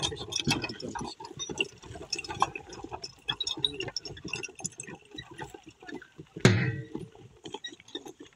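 A pair of bullocks running round a dirt pit, dragging a wooden beam on a post: a patter of many small irregular clicks and knocks from the hooves and the rattling gear, with one short loud burst about six and a half seconds in.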